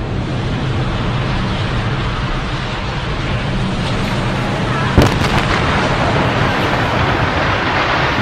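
Building demolition with explosive charges: a continuous deep rumble of collapse and debris, with one sharp blast about five seconds in followed by a few quick cracks as a brick high-rise comes down.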